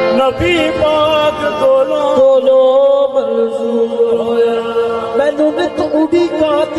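Qawwali: a male lead voice holding long, bending notes over the steady sustained tones of harmoniums.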